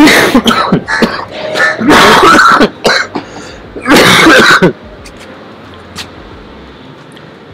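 A man coughing and clearing his throat into his fist, in repeated loud bouts over about the first five seconds.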